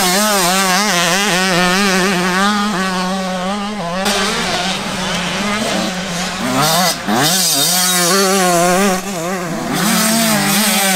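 85cc two-stroke motocross bikes racing, their engines revving up and down as the riders work the throttle through the corners. There is a sharp rev up and back down about seven seconds in.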